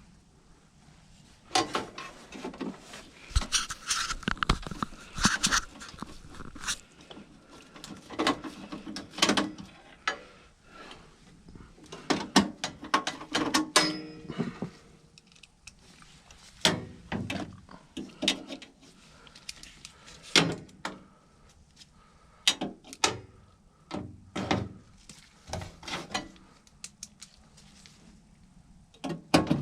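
Irregular knocks, clicks and rattles of tools and metal parts being handled during work on a furnace's inducer motor, coming in bursts with short pauses between.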